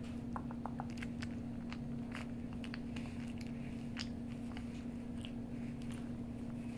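Shorthaired dachshund puppy biting and chewing a piece of dried jerky, a run of short, sharp crunches at uneven intervals. A steady low hum runs underneath.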